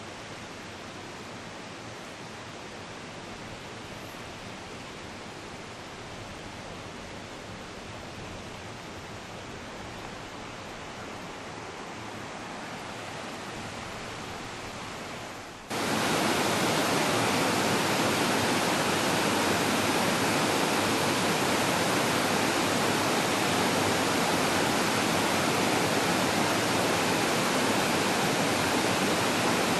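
Steady rushing of water, an even hiss with no distinct events. About halfway through it jumps abruptly to much louder and stays steady.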